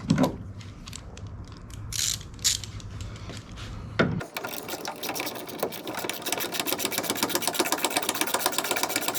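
A few knocks, then a hand ratchet clicking in a fast, even run while a fastener is turned.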